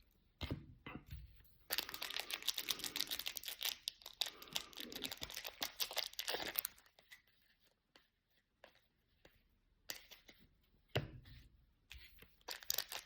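Trading-card pack wrapper being torn open and crinkled: a dense crackling stretch of about five seconds, then a few soft handling clicks and a thump, with crinkling starting again near the end.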